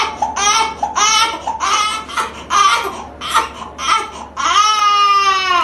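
Newborn baby crying: a run of short, quick wails, then one long drawn-out wail near the end.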